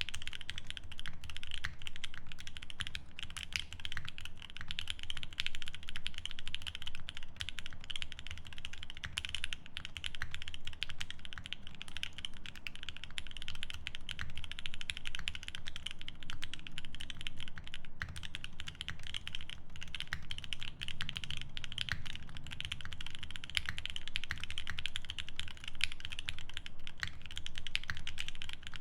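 Steady, fast typing on a Geon F1-8X mechanical keyboard with lubed OP Black switches on an aluminium plate and GMK keycaps: a continuous stream of keystrokes with no pauses.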